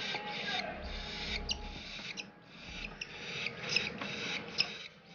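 Aviary birds making short rasping calls, several a second, with sharp chirps mixed in.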